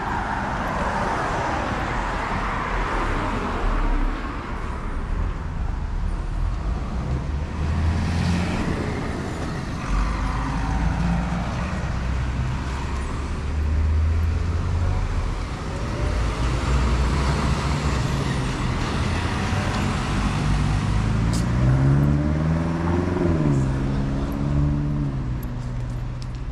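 Road traffic passing: steady engine and tyre noise from cars on the street. About 21 seconds in, one engine rises in pitch as it accelerates, peaks and settles back.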